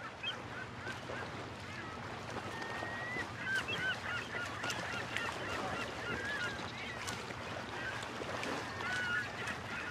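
Many birds calling together: a busy chorus of short squawks and chirps, over a low steady hum.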